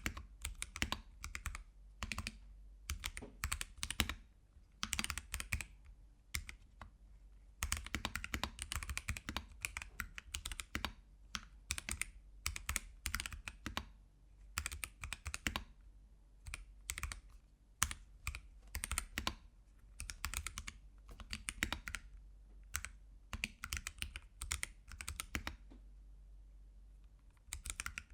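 Typing on a mechanical keyboard fitted with AKKO tactile switches: fast runs of keystrokes broken by short pauses of about a second.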